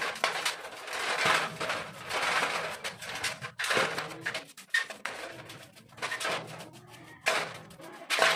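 A toothbrush dipped in gasoline scrubbing a motorcycle carburetor, making repeated swishing bristle strokes about once a second, with a quieter pause in the latter half.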